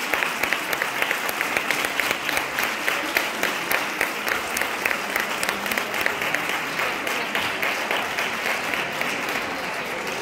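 Audience and cast applauding: many hands clapping densely and steadily, thinning a little near the end.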